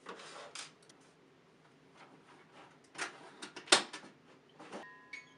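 Scattered handling noises: short rustles and small knocks, with one sharp knock a little past the middle.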